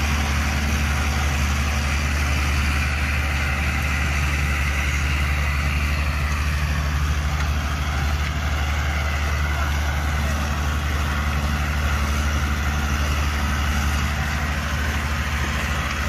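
Tractor diesel engine running steadily under load, with a deep even hum, as it pulls a rotary tiller (rotavator) churning through the soil.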